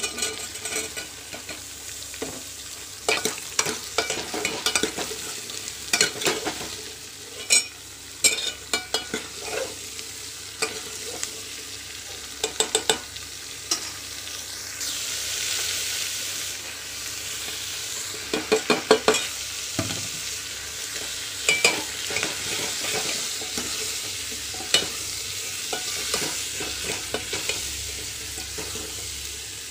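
Chopped chow chow and drumstick pieces frying in hot oil in a metal pot, sizzling, with a steel spoon scraping and clinking against the pot as they are stirred. The sizzle becomes a steadier hiss about halfway through.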